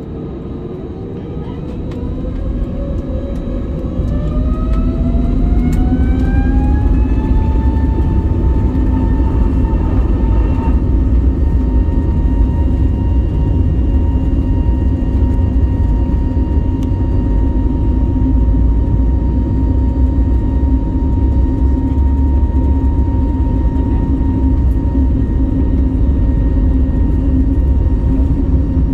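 Airbus A320neo turbofan engines spooling up to takeoff thrust, heard inside the cabin: a whine climbs in pitch and the sound grows louder over the first several seconds, then the whine holds steady over a loud, even low rumble as the airliner accelerates down the runway.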